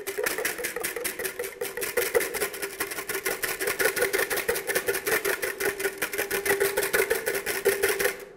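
Wire whisk beating egg whites by hand in a mixing bowl, clattering against the bowl in a rapid, even rhythm of about nine strokes a second as the whites are whipped toward meringue.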